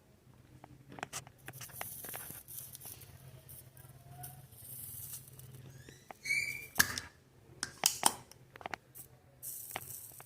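Spring-loaded desoldering pump at work on a solder joint: scattered small clicks, then a sharp snap with a short sucking whistle about seven seconds in as the plunger fires, and another click about a second later. A faint steady hum runs underneath.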